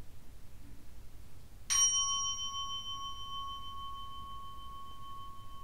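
A small Buddhist bowl bell struck once, about two seconds in, ringing with a clear high tone that fades slowly.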